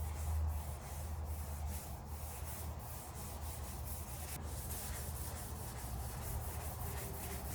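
Sandpaper worked back and forth by hand over a primed steel car fender, a few rasping strokes a second, over a low steady hum.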